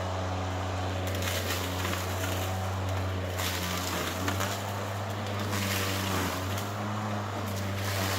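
ECHO 58-volt battery lawnmower running with its blade spinning at a steady hum, while swishing, shredding noise comes and goes as it cuts and mulches tall, tough weeds.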